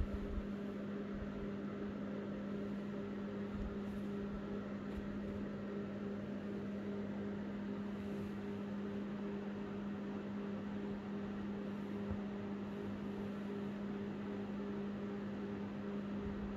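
Steady low hum with a fainter tone above it, over an even hiss: a motor or appliance running.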